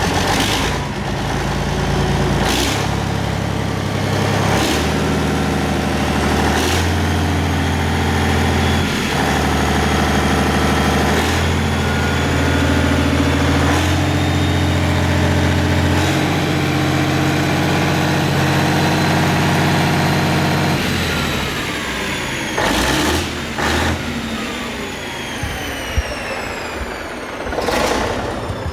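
Yanmar diesel engine running under test, its speed stepping up and down, then slowing with a falling pitch about 21 seconds in. A few sharp knocks cut through the running.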